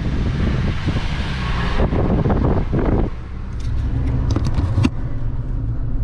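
Suzuki Jimny JB64W's 660 cc turbocharged three-cylinder engine running as the car drives, heard from inside the cabin along with road noise. A rush of road and wind noise fills the first two seconds or so, then drops away to a steady low engine hum, with a few light clicks near the end.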